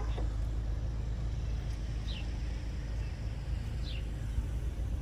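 Outdoor background with a steady low rumble, likely vehicles or wind, and a short high bird chirp twice, about two and four seconds in.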